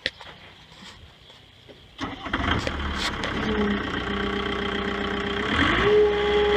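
Gehl 5240 skid-steer loader's engine starting about two seconds in and then running, with a steady whine that dips and rises again near the end.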